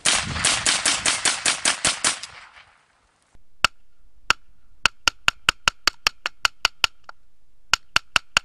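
Ruger 10/22 .22 rifle firing rapid semi-automatic shots, about five a second for two seconds. After a short gap, more shots come as sharp cracks with a ringing tone, in quick strings of several at a time.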